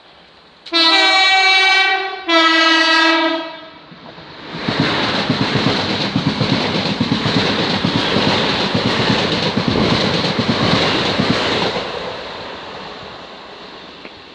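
Class 365 electric multiple unit sounding its two-tone horn as two long notes, the second slightly lower. It then passes through at speed with a rush of wheel and rail noise and clatter, fading over the last few seconds.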